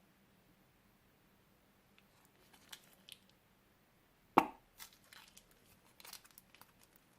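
Plastic bag crinkling and crackling in short bursts, with one sharp knock about four seconds in.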